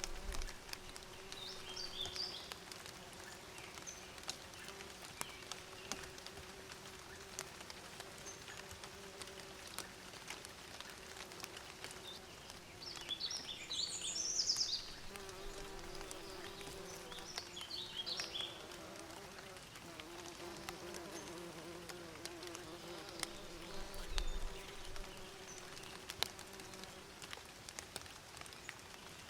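Bees buzzing in a steady low hum, with short bursts of bird chirping near the start, around the middle and a little after.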